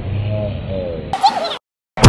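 Teenage boys laughing over a steady low hum, with a brief louder voice just past a second in, then the sound cuts off to silence.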